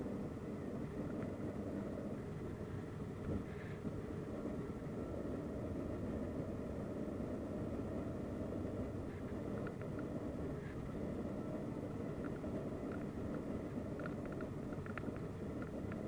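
Steady drone of a turboprop airliner heard from inside the cabin: engines, propellers and airflow running at an even level. A few faint clicks from the cabin come near the end.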